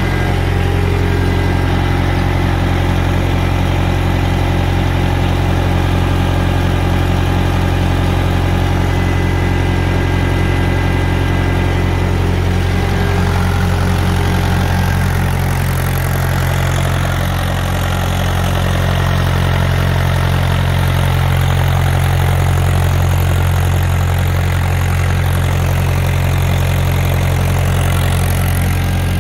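Mahindra 575 DI tractor's diesel engine running steadily at a constant speed while it drives a PTO generator.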